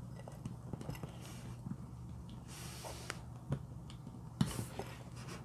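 Sticky slime being pressed and dragged with a lipstick: small wet clicks and crackles, with two brief hissing squelches, about two and a half and four and a half seconds in.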